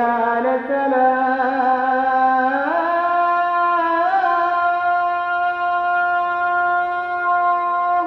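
Islamic call to prayer (adhan): a single voice chants one long, held, ornamented phrase, stepping up in pitch about two and a half seconds in.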